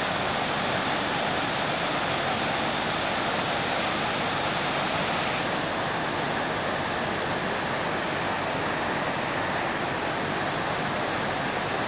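Steady rushing of a muddy flooded stream in spate, an even noisy wash with no pauses, its tone shifting slightly about five seconds in.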